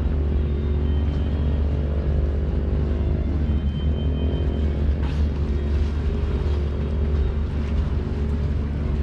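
Engines of the fast passenger ship KM Gregorius running at full throttle: a steady low rumble with droning tones whose pitch shifts slightly about three seconds in.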